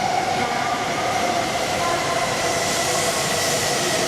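Shinkansen train running, a loud steady rushing noise with a few steady whining tones over it.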